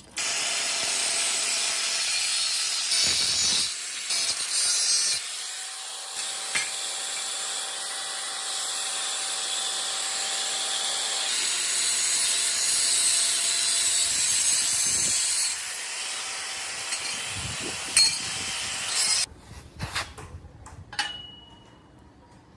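Power tool cutting or grinding metal: a loud, steady high-pitched hiss with a faint motor whine under it. It cuts off suddenly near the end, followed by a few light clicks.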